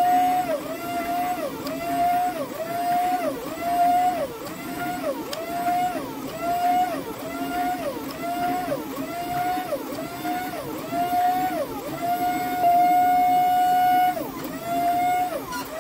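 Hydraulic forging press pressing a red-hot steel billet in repeated strokes. Its pump motor hums steadily and sags in pitch with each squeeze, about once a second, with a longer unbroken hum shortly before the end.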